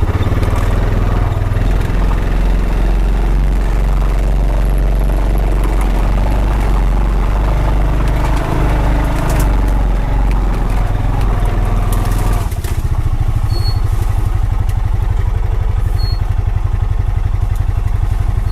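Honda Pioneer 520 side-by-side's engine running under way on a rough mountain track, with scattered rattles and knocks. About twelve seconds in the engine note drops and settles into a steadier, even beat.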